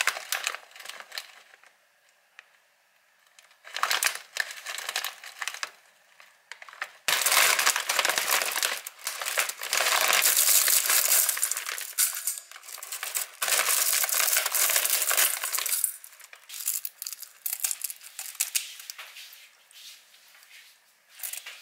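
Crinkling of a plastic bag of dried seaweed (miyeok) as it is handled and opened, with the brittle dried seaweed rustling and crunching as it is pulled out; the crackling is loudest through a long stretch in the middle.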